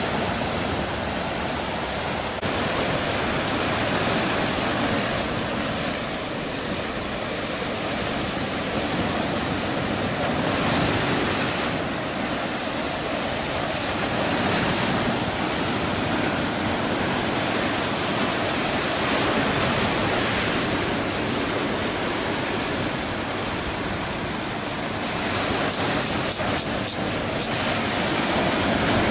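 Sea surf washing on a rocky shore, a constant rushing noise that swells and eases slightly. A short run of faint, high-pitched clicks comes near the end.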